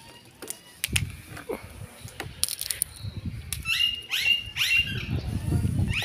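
Wings of a large green parrot flapping as it takes off, with a few sharp knocks in the first half. About four short bird calls falling in pitch follow a little past the middle, with low flapping noise near the end.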